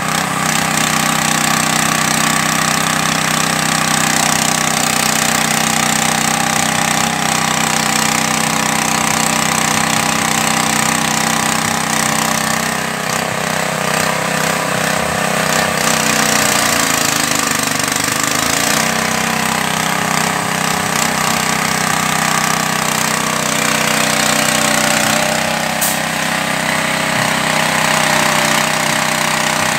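Small single-cylinder petrol engine running steadily, driving a fish-feed pellet extruder as it turns out floating pellets. Its note dips briefly and recovers about halfway through, and there is a single sharp click near the end.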